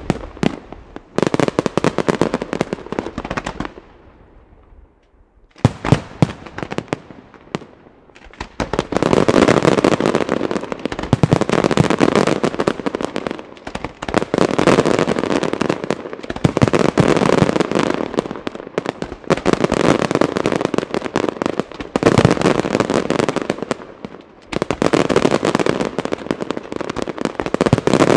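Luigi di Matteo fireworks display: aerial shells and rising comets firing in rapid, overlapping bangs. The bangs thin out to a lull of about two seconds a few seconds in, then return as sustained waves of dense reports.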